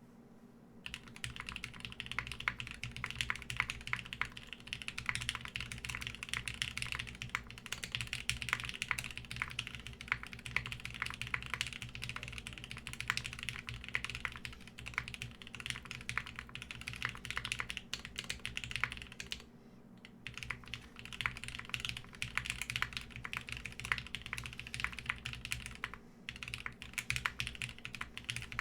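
Typing on a Keycult No.1 TKL mechanical keyboard with lubed and filmed Gateron Fei Matcha switches on a polycarbonate half plate, under GMK keycaps: a fast, steady run of keystrokes starting about a second in, with short pauses about two-thirds of the way through and again near the end.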